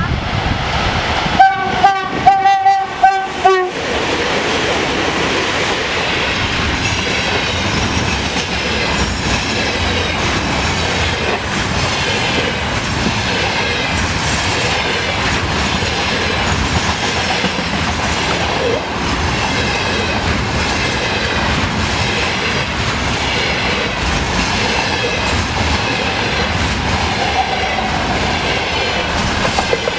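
VL11M electric locomotive sounding its horn in a quick series of about five short blasts. Then its container train rolls past with a steady rush of noise and the rhythmic clickety-clack of wagon wheels over the rail joints.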